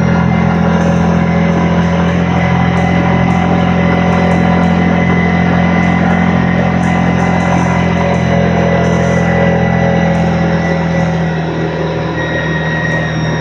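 ATV engine running at a steady speed while riding, a constant droning hum; its pitch drops a little about eleven seconds in as the machine eases off.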